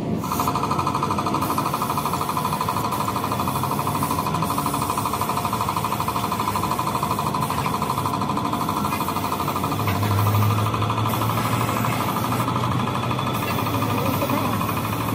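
A power tool running continuously with a fast, even rattling buzz. A low hum joins about ten seconds in.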